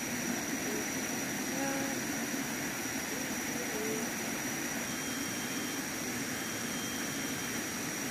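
Tropical forest ambience: a steady high-pitched insect drone over an even hiss, with a few faint short calls.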